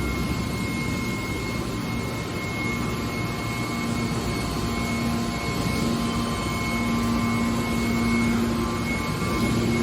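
Hydraulic metal recycling baler running: a steady machine hum with a thin high whine, the low hum growing stronger about four seconds in.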